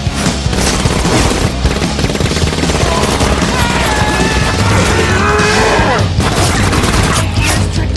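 Film battle sound mix: rapid automatic gunfire with a music score underneath, and a long creature cry with wavering pitch in the middle, from an orc.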